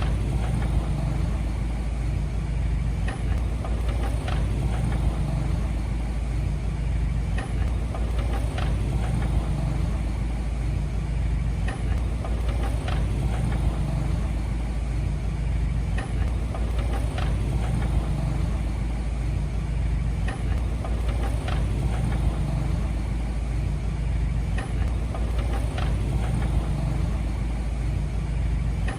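Diesel engine of a heavy earthmoving machine running steadily, with scattered light knocks every few seconds.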